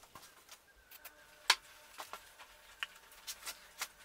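Scattered light clicks and taps of small handled parts, a wooden block and a Perspex piece being fitted together for superglueing, with the sharpest click about a second and a half in.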